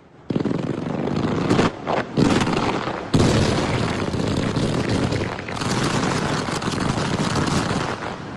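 Fireworks going off in a dense barrage: several sudden loud bursts in the first three seconds, then a continuous wash of bangs and crackle that eases off near the end.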